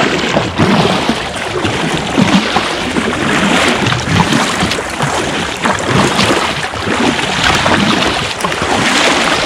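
Sea water rushing and splashing along a sit-on-top kayak's hull as it is paddled hard, swelling with each paddle stroke.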